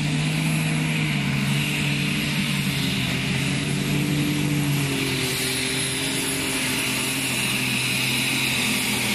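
Unlimited super stock pulling tractor's engine running flat out under load while it pulls the sled, a loud, steady scream with a high hiss over it.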